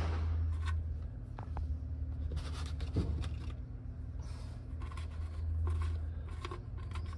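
Light scraping and small clicks of fingers turning a loosened sump plug out of a Triumph Stag's oil pan, with one clearer tick about three seconds in, over a steady low hum.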